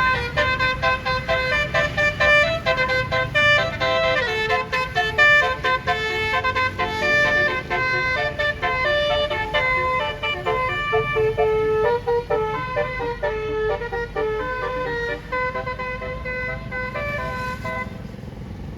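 Bus 'telolet' multi-tone musical horn playing a quick tune of short notes over the low rumble of the bus engine, dying away near the end.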